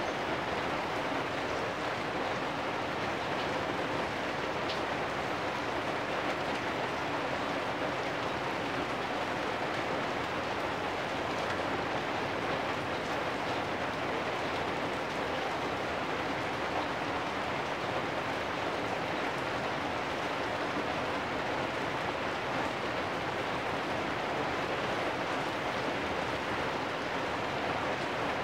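Steady rain falling on corrugated metal roofs and a wet lane, a continuous even hiss with no let-up.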